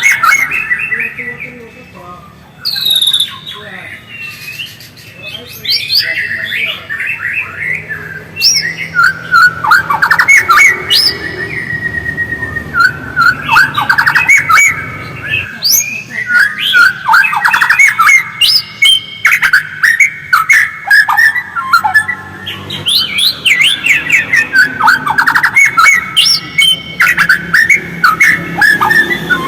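White-rumped shama (murai batu) singing: a long, continuous run of rapid chattering and twittering phrases with quick whistled sweeps, thinning briefly a few seconds in.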